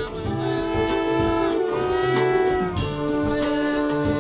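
Small jazz band playing an improvised piece: a trumpet holds long notes over guitars, with the drums keeping time on the cymbals.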